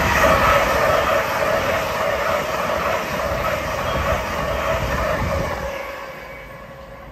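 A train going by on the main line and moving away, its rumble and a steady whine fading out over about six seconds.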